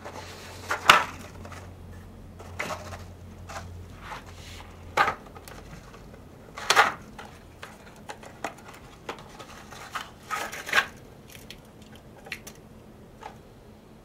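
Rummaging among ammunition boxes and cartridges on a reloading bench: scattered clicks, knocks and light clatters as things are picked up and set down. The loudest knocks come about a second in and again around seven seconds in.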